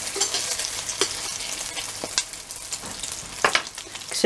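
Egg-dipped matzah rolls sizzling as they fry in hot oil in a stainless steel pan: a steady hiss with a few sharp pops and clicks.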